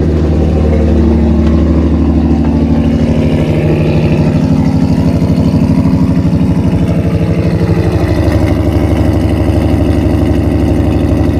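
2008 Ford Mustang's 4.0 L V6 with long-tube headers idling loudly through its dual exhaust, with a steady, rhythmic pulse. The engine has just fired up on a reconnected battery after being stored.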